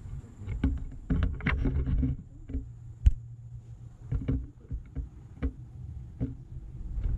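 Low rumble inside a moving cable car gondola cabin, with a run of clicks and knocks and one sharp click about three seconds in.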